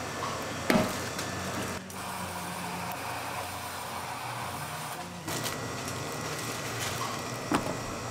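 Countertop can-sealing machine: a can knocks into place, then the machine's motor runs with a low steady hum for a few seconds while it seals the lid on. Another sharp knock comes near the end.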